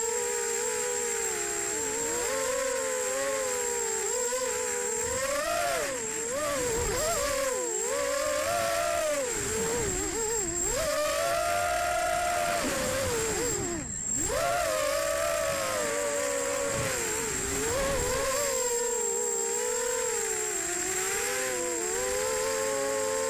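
Brushless motors and propellers of an EMAX Nighthawk Pro 280 racing quadcopter, heard from its onboard camera, whining with a pitch that swoops up and down constantly with the throttle. About fourteen seconds in the pitch drops sharply for a moment and then climbs again. A steady, thin high tone sits over it throughout.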